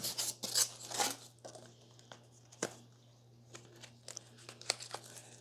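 Plastic packaging wrap being handled and pulled off lamp parts: crinkling and rustling with sharp crackles, busiest in the first second or so, then sparser.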